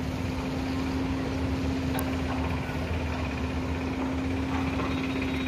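A large engine running steadily at an even pitch, a constant droning hum with low rumble, with a single click about two seconds in.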